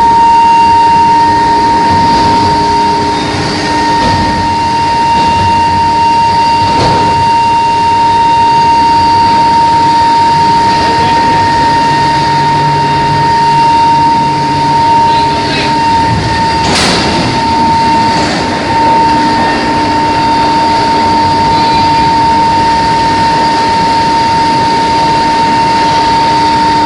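Induction heating machine running: a loud, steady high-pitched whine over a continuous industrial din, with a short sharp clank about two-thirds of the way in.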